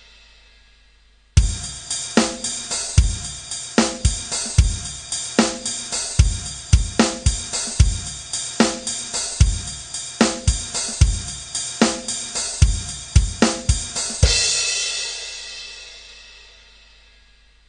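Background music: a drum beat with cymbals starts abruptly about a second and a half in and stops near the end, leaving a cymbal to ring and fade out.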